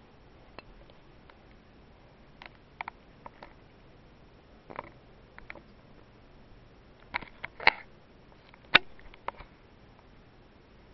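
Scattered small clicks and taps at irregular intervals, a few at a time, with a busier cluster and the sharpest single tap in the second half.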